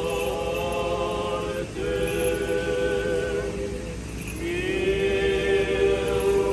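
Slow Orthodox funeral chant sung by the clergy in long held notes, a new phrase starting about two seconds in and another that slides up into a held note past four seconds.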